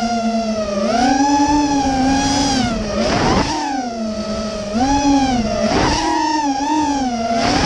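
Four Cobra 2204 2300kv brushless motors of a 250-size FPV quadcopter with three-blade props, whining in a pitched hum that rises and falls over and over with throttle, heard from the camera on the quad's frame. Short rushes of wind noise come about three, six and seven and a half seconds in.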